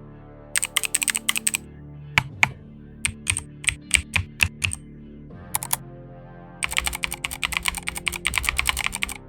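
Mechanical keyboard keys being pressed: a quick run of typing, a few separate key presses, then a longer burst of fast typing near the end. Background music plays underneath.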